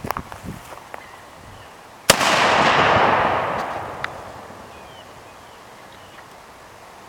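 A 10-gauge double-barrel signal cannon firing one barrel with a blank: a single sharp bang about two seconds in, followed by a loud rushing tail that dies away over about two seconds. A few light clicks come first.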